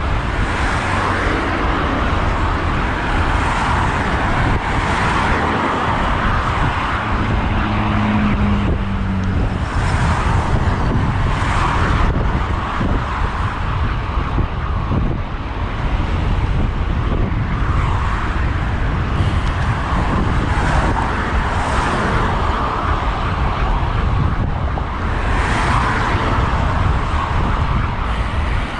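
Road traffic with several cars passing, over a steady low wind rumble on a moving bicycle's camera microphone. A brief low hum comes in about eight seconds in.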